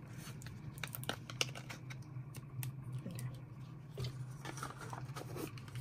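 Scattered light clicks and crinkles of plastic packaging being handled and opened to take out a new vinyl weeding pen.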